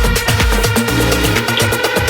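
Electronic dance music with a steady kick-drum beat and hi-hats; about a second in, a held bass synth chord comes in under the beat.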